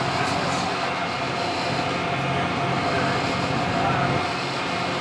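Tour boat's engine running steadily under way, heard from inside the cabin as a constant drone and hum over an even rush of water and wind.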